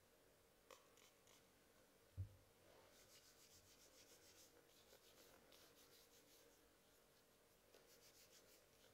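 Hands rubbing together, a faint quick rustle of repeated strokes, with a soft low thump about two seconds in.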